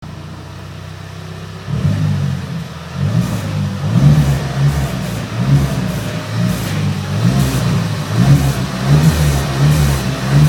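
Volkswagen Jetta 200 cv 2.0 TSI turbo four-cylinder car sounding with a noise the owner calls strange: a steady low hum that jumps louder just under two seconds in, then a low drone that pulses unevenly.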